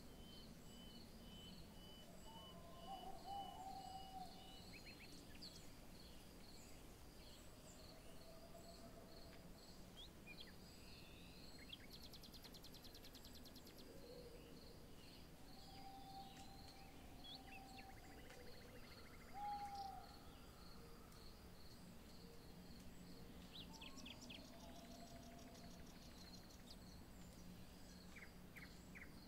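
Faint bush ambience: insects chirping steadily, with scattered bird calls. The loudest is a short whistled call about two-thirds of the way in.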